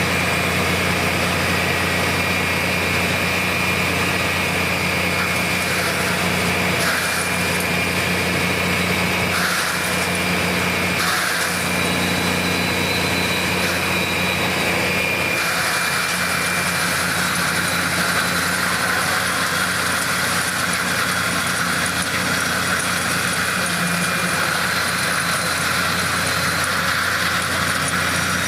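Engine and spinning grinding drum of a Bucketmouth stump grinder running steadily after start-up. About halfway through the sound changes abruptly, taking on a stronger high-pitched hiss.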